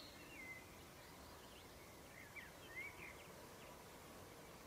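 Near silence: faint outdoor background with a few short, high bird chirps about two to three seconds in.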